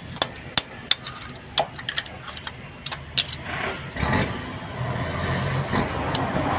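A screwdriver ticking and scraping against steel as it pries at a lock ring on the splined shaft inside a truck's planetary hub: a string of sharp metallic clicks. From about four seconds in, a steady low engine-like hum comes up underneath and stays.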